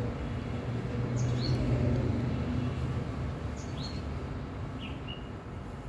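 A bird chirping three times, each a short note that slides down and then levels off, over a steady low hum that fades after about halfway.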